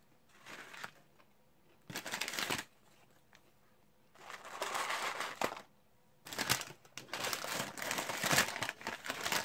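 Paper fast-food wrappers and a paper bag crinkling in several bursts as food is handled, the longest and most continuous in the second half.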